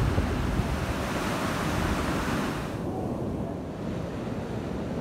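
Surf breaking on a beach with wind buffeting the microphone, a dense steady rush. About three seconds in the sound abruptly turns duller and quieter, leaving a low wind rumble.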